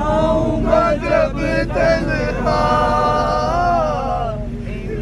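A man's voice chanting a slow melody with no instruments, with long held notes, over a steady low hum.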